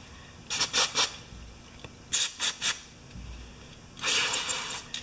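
Aerosol can of carburetor cleaner sprayed in short hissing bursts: three quick squirts, three more about a second and a half later, then a longer spray of about a second near the end, degreasing a cable end for soldering.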